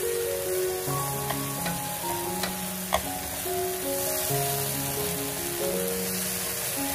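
Chopped tomatoes sizzling steadily in hot oil in a frying pan, with a few sharp clicks in the first half, under background music.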